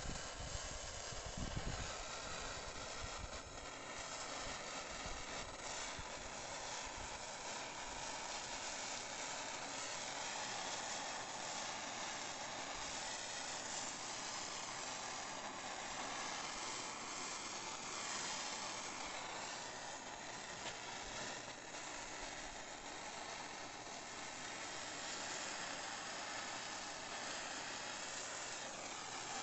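Handheld gas torch burning with a steady hiss while its flame scorches the live edge of a wooden slab.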